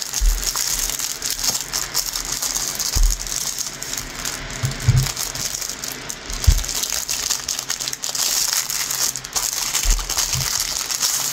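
Plastic packaging of a diamond painting kit rustling and crinkling as it is handled and opened, with a steady patter of small clicks and rattles and a few soft low thumps.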